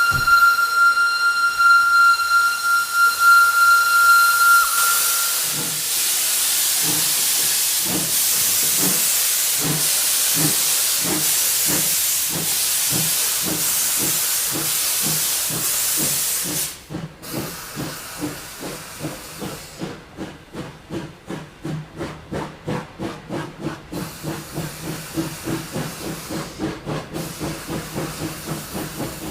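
Steam locomotive departing: one long steady whistle blast lasting about five seconds, then loud steam hiss and exhaust chuffs that start slow and gather pace. The heavy hiss stops about sixteen seconds in, leaving quickening chuffs and a low running rumble.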